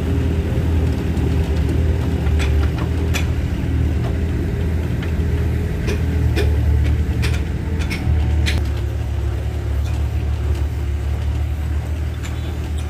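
Hyundai 60-9 mini excavator's diesel engine running under load as it digs and dumps soil with its bucket, with a string of sharp knocks. The engine note changes about eight seconds in.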